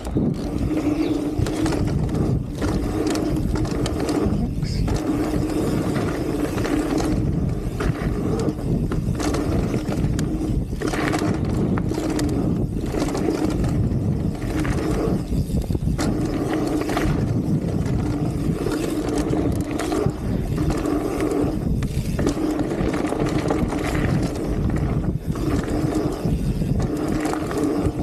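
Mountain bike descending a dirt singletrack at speed: tyres rolling over packed dirt and wind rushing over the camera microphone, with frequent short knocks and rattles from bumps.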